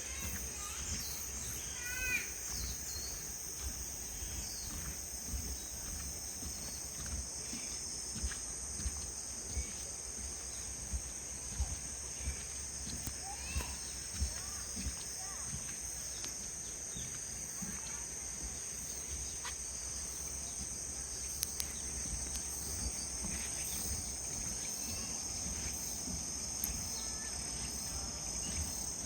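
Forest ambience with a steady, high-pitched insect chorus throughout. A few bird chirps come about two seconds in, and scattered low thuds and faint clicks run through it.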